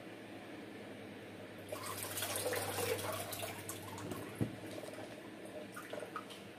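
Water splashing and streaming back into a basin as a potted orchid in a clear plastic pot of bark substrate is dipped and lifted out to drain, from about two seconds in for about two seconds; the brief soak only wets the substrate. A single knock follows a little later.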